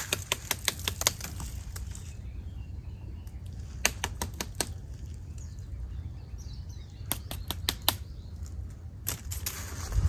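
Short runs of sharp taps on a tree trunk, a few quick knocks each, repeated four times. Faint bird calls can be heard between the runs.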